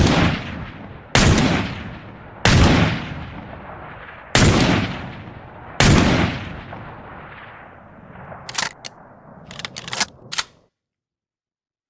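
Five shots from an 1858 cap-and-ball revolver, fired one to two seconds apart, each with a long echoing decay. These are followed by a series of short, sharp clicks.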